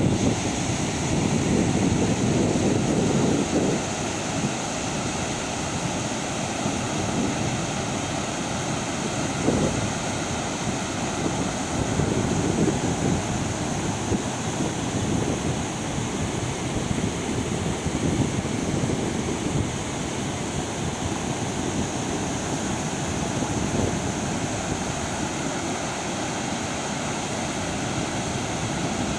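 Waterfall cascading over stepped rock ledges: a steady rush of falling water, a little louder in the first few seconds.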